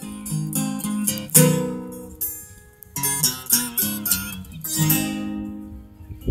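Acoustic guitar strumming the closing chords of a song, with short pauses between the strums.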